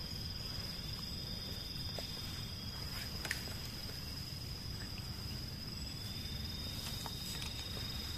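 Night insects giving a steady high-pitched drone, over a low background rumble, with a couple of faint ticks.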